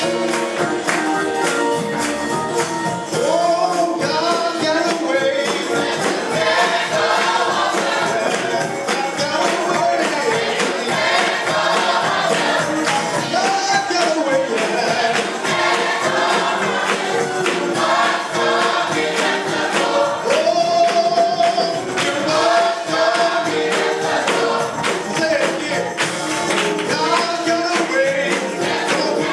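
Gospel music with choir singing, backed by a steady beat with tambourine.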